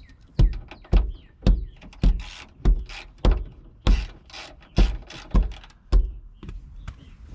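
A series of dull thumps, a little under two a second at an even pace, with a scraping rustle through the middle.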